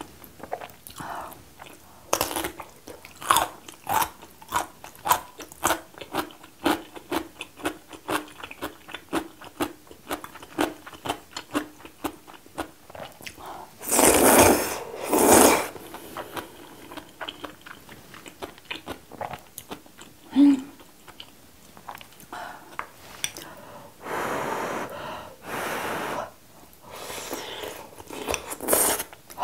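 Close-miked eating: crisp crunching chews of young radish kimchi, about two a second, then loud slurps of wheat noodles in spicy broth about halfway through and again near the end.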